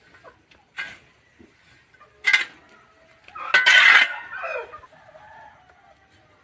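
A rooster crowing once, a loud call that falls away at the end, about halfway through. Two short sharp knocks or scrapes come before it.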